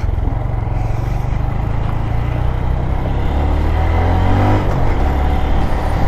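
Honda Grom's single-cylinder engine running while the bike is ridden on the road, over a steady low rumble; around the middle the engine note shifts in pitch as the throttle changes.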